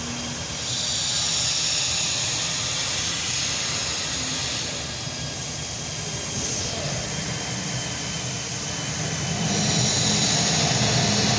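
Hydraulic power unit of an Ermaksan press brake running: an electric motor and pump giving a steady mechanical hum with a high hiss, growing louder near the end.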